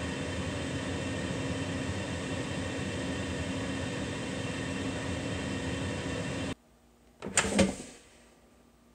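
Kitchen Academy air fryer running at 400 °F, its fan giving a steady hum with a few steady tones, cutting off suddenly about six and a half seconds in. About a second later the basket drawer is pulled out with a short, loud scrape.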